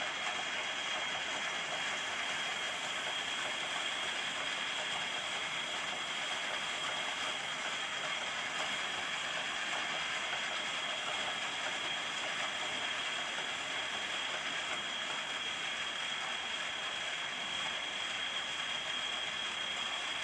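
Lathe running through a turning operation: a steady hiss of cutting with a constant high-pitched whine over it.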